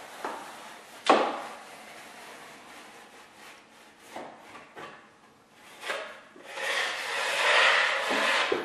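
Drywall taping knife scraping joint compound over paper tape in an inside corner, in short strokes. There is a sharp knock about a second in, and a longer, louder scrape near the end.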